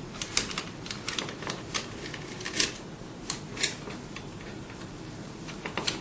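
Irregular small metallic clicks and taps from hand tools and screws on the vacuum pump's top cover as its screws are fitted and tightened. They come thickly for the first few seconds, thin out, and return near the end.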